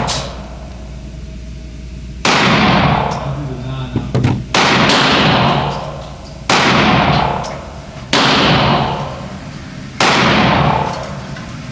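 Glock 32 pistol in .357 SIG firing slow, deliberate single shots: five loud cracks about two seconds apart, each trailing off in a long echo.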